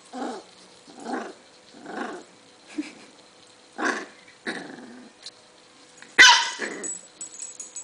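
Corgi growling in short grumbles about once a second while his belly is tickled, a sign of mild discomfort, with a sharper, louder outburst about six seconds in.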